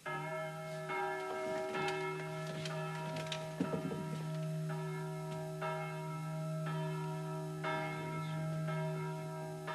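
Bells ringing, a new stroke about once a second, each ringing on over a steady low hum.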